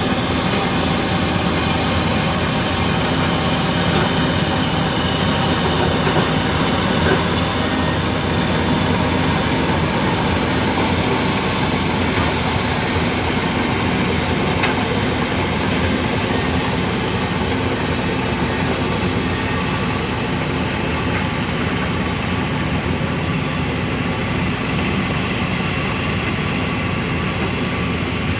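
Komatsu D65 crawler bulldozer working: its diesel engine runs steadily, with the clatter of its steel tracks.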